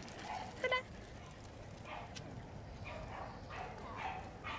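Small dogs yipping: one short, sharp yip just before a second in, then several fainter short yips and barks.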